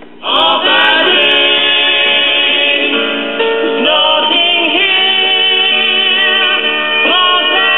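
Vinyl LP playing through a Califone 1410 tube record player's own speaker, tracked by its replacement P226 cartridge: music with singing. It comes in suddenly about a quarter second in and has no top end.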